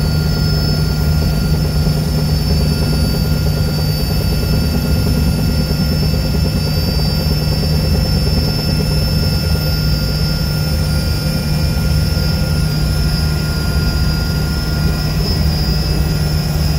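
Sikorsky S-64 Skycrane helicopter in flight, heard from on board: the loud, steady drone of its twin turbine engines and rotor, with steady high whines over it.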